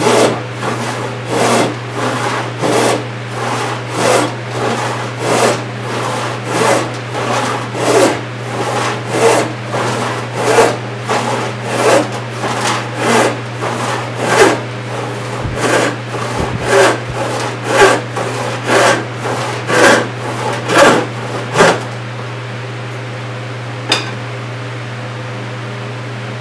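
1888–96 Disston No. 7 hand rip saw, 28-inch with 6 teeth per inch, ripping 4/4 white oak in a steady rhythm of strokes, about three every two seconds. The sawing stops about 22 seconds in, followed by a couple of light knocks.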